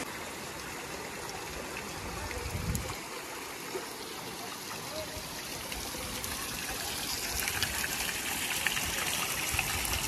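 Shallow water trickling and splashing over rock ledges at low flow, a steady hiss that grows a little louder and splashier in the second half.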